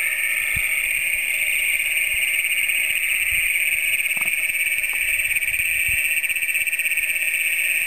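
A dense chorus of Great Plains toads calling: many males' long, pulsed trills overlap into one continuous, loud, high-pitched drone.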